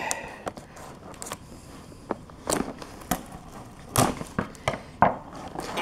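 Scissors and fingers working at the packing tape on a cardboard shoebox: irregular sharp clicks, knocks and crackles of tape and cardboard, roughly one a second.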